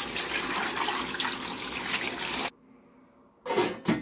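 Water poured from a jug into a stainless ultrasonic cleaner tank full of aluminium scrap: a steady splashing that stops suddenly about two and a half seconds in. Near the end comes a brief clatter as the tank's lid is set on.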